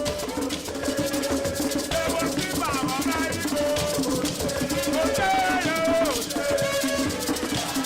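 Background music with a steady beat of shakers and drums under a sliding melody line.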